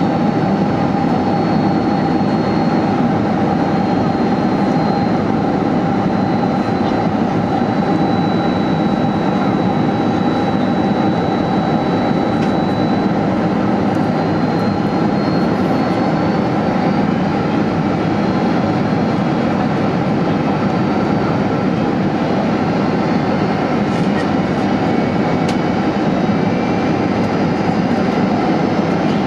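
Steady jet airliner cabin noise heard from inside the cabin in flight: engine and airflow roar with a constant hum and a faint high whine above it.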